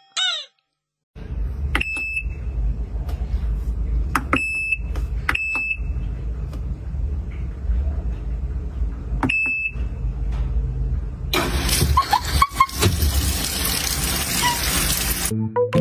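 Top-loading washing machine: a few short electronic beeps from its control panel over a low steady hum, then water rushing into the drum as a loud hiss that cuts off suddenly near the end.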